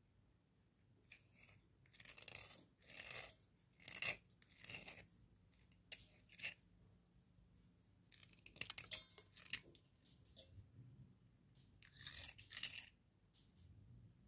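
Wet cubical slate pencils crunching as they are crushed and broken in the fingers, in short irregular bursts of gritty crunches about a second or two apart.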